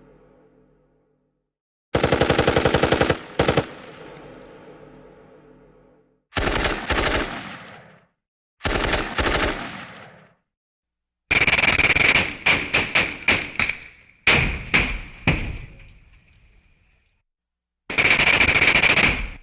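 Machine gun sound effects. Several separate bursts of automatic fire each end in a fading echo. Around the middle comes a string of single shots in quick succession.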